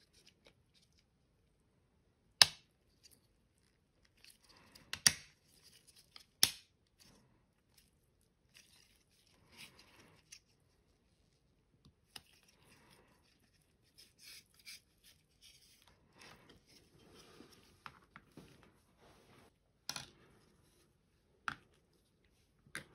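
Small hard parts being handled: a few sharp clicks, the loudest about two seconds in, with light rustling and scraping between them.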